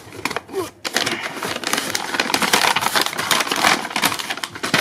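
Brown kraft packing paper crinkling and rustling as hands dig through a cardboard box. A few separate crackles come first, then a dense, continuous crackle starts about a second in.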